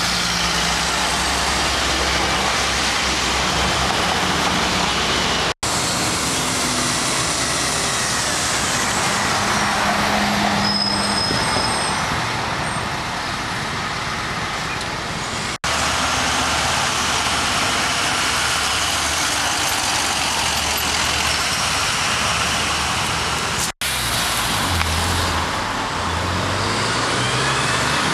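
Street traffic with city buses and cars driving past, the bus engines running, in several short takes joined by brief dropouts. The engine sound is heaviest near the end as a bus pulls through the intersection.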